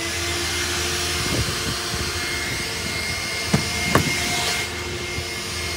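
Coin-operated car wash vacuum running: a steady whine over the rush of air through the hose, the motor having just spun up. Two sharp knocks come about three and a half and four seconds in.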